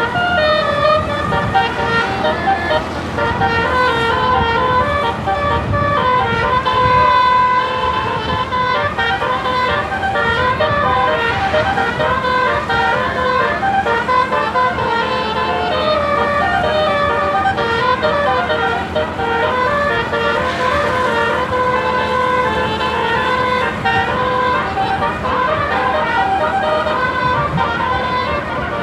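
Indonesian bus basuri telolet horn playing a tune: a string of pitched horn notes stepping up and down without a break, over the rumble of the bus.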